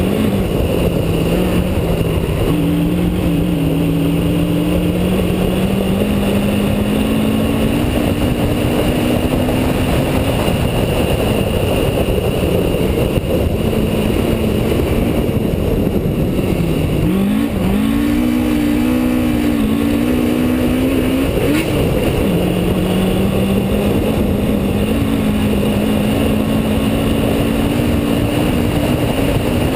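Rally car engine heard on board under hard acceleration, its revs climbing through each gear and dropping at the shifts. There is a sharp dip and rise about seventeen seconds in, as the car slows and accelerates again, over loud road and wind noise.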